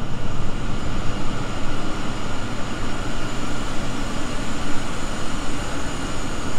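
Steady machinery noise in a sewage pump control room, where variable frequency drives run the influent pumps and pumped sewage flows through pipes with check valves. Several steady high tones sit over a low rumble.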